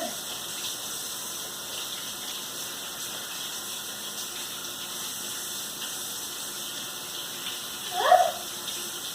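Tap water running steadily into a sink as sticky slime is washed off hands. Near the end comes one short rising squeal.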